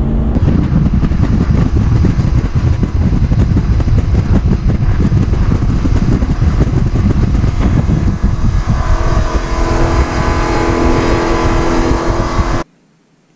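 A fishing boat running fast on the river: heavy wind rumble on the microphone over the boat's motor and the hiss of the wake. A steady motor drone comes through more clearly over the last few seconds, then the sound cuts off suddenly.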